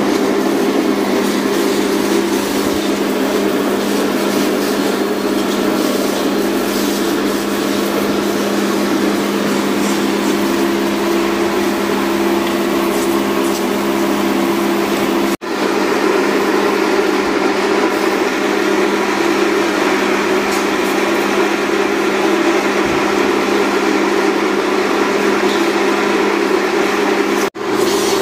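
Electric pressure washer (jet pump) running steadily: a constant motor hum under the hiss of the water spray used to wash an AC indoor unit's coil. The sound cuts out abruptly twice, near the middle and near the end, and resumes at once.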